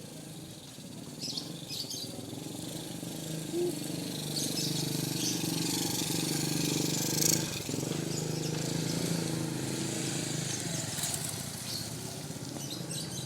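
A motor vehicle's engine running, growing louder to a peak about seven seconds in and then fading as it passes. Short bird chirps sound near the start.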